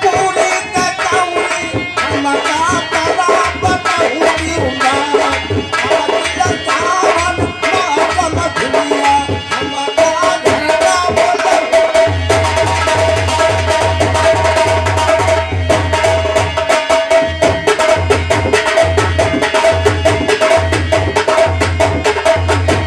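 Live Indian folk music: tabla and drums keep a steady rhythm under a melody. About ten seconds in, a long held note enters with a heavier, pulsing low drumbeat.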